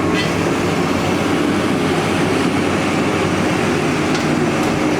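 Heavy diesel engine of a borehole drilling rig running steadily under load while the drill string is pulled, with a few faint metallic clicks.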